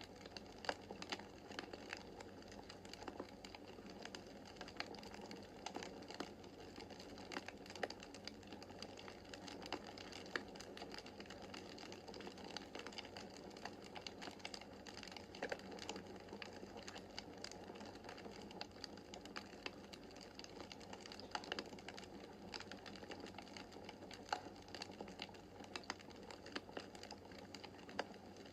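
Wood fire burning in a fireplace: a steady low rush of flames with irregular crackles and occasional sharper pops from the burning logs.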